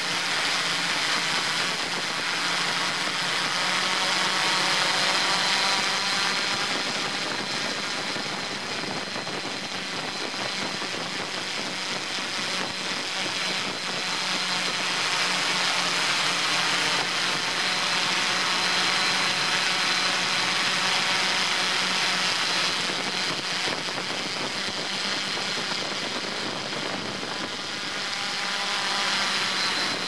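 Multirotor camera drone's motors and propellers heard from its own onboard camera: a steady high whine over a broad rushing hiss, with slight shifts in pitch as the drone manoeuvres.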